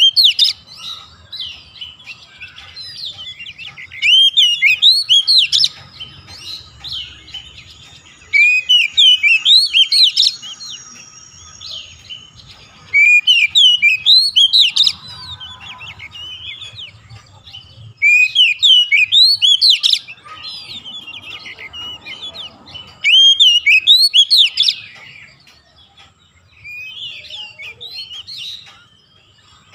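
Oriental magpie-robin singing in loud bouts of rapid, varied whistled phrases, each about two seconds long, about every four to five seconds, with quieter gaps between; the last bout near the end is weaker.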